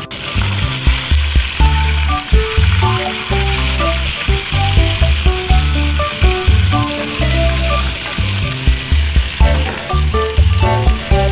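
Chicken pieces and chopped bell peppers frying in hot oil in a pot, a steady sizzle. Background music with a strong bass line plays over it.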